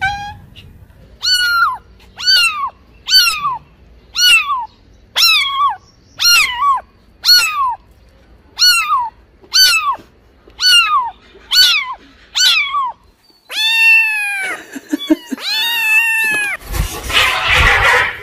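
A kitten meowing over and over, about a dozen short high meows roughly one a second, each dropping in pitch. Then come three longer, lower meows, and near the end a cat hisses harshly.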